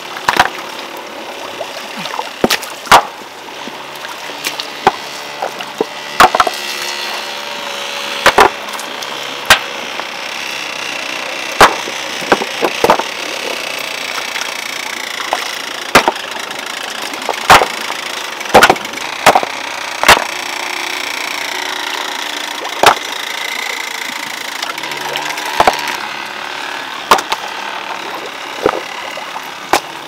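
Stones being laid one on another to build up a ditch embankment: sharp knocks of stone on stone at irregular intervals, about one a second and sometimes two in quick succession, over a steady background hiss.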